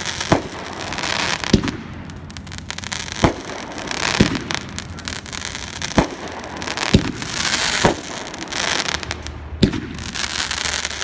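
A 16-shot 'Road Rage' consumer firework cake firing shot after shot: sharp bangs about every second or so, with hissing between the reports as the shells rise and break.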